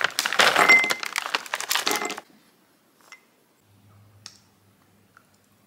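Tableware clattering and clinking, dense for about two seconds with a brief ringing clink, then only a few faint clicks.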